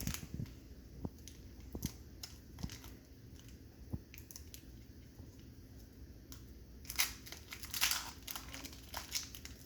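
A Panini Prestige football card pack's wrapper being handled and torn open, crinkling: a few scattered crackles at first, a quieter stretch, then louder crinkling from about seven seconds in.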